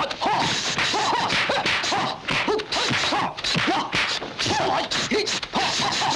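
Dubbed kung fu fight sound effects: a quick run of punch and kick whacks and swishes, about two a second, with short shouted cries from the fighters.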